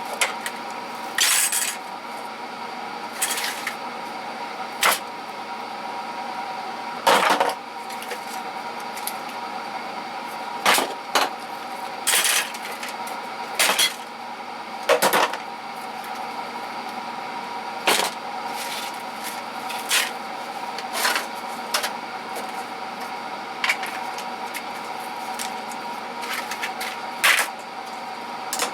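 Tools and small items being handled and put away in a toolbox: irregular clunks and clatters every second or two, over a steady background hum.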